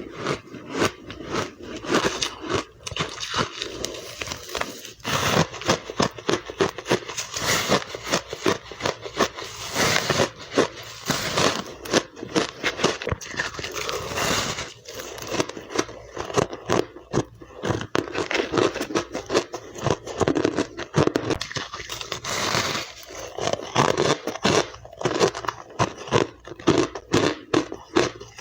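A person biting and chewing ice close to the microphone, a dense run of crisp cracks and crunches with hardly a pause.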